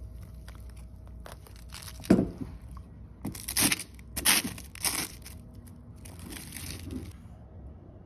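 Wooden stick breaking into a brittle, foam-like crust of burnt, hardened sugar, crunching in several separate bursts. The loudest crunch comes about two seconds in, and the crunching stops about a second before the end.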